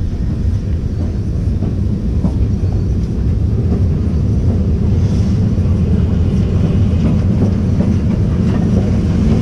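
Small 2 ft gauge steam locomotive and its coal wagon running along the line, heard from on board: a steady rumble of wheels on rail with now and then a faint click, growing slightly louder.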